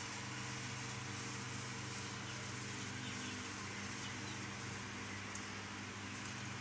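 A steady mechanical hum with a low drone, holding even throughout.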